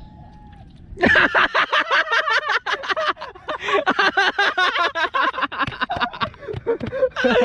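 Faint outdoor background, then about a second in, loud excited voices break out and keep going, shouting with what sounds like laughter.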